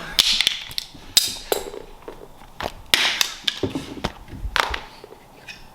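Irregular knocks, taps and rustling from objects being handled and moved about, a few sharp knocks among them.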